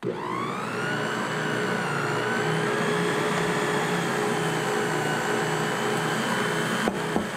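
Electric stand mixer's motor running as its dough hook kneads bread dough: a whine that climbs in pitch as it spins up at the start, then holds steady over a rhythmic low churning. Two light knocks near the end.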